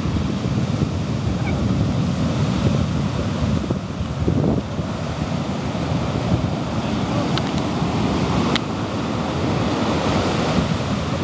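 Ocean surf breaking and washing up the beach in a steady wash, with wind rumbling on the microphone.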